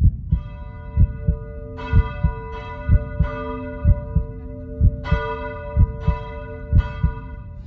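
Soundtrack of a slow heartbeat sound effect, low double thumps about once a second, under ringing bell-like chime notes struck every second or so.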